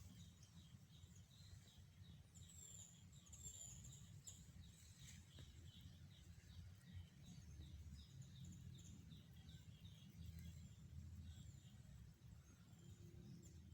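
Faint small-bird chirping, a run of quick repeated high notes several times a second, over a low steady rumble.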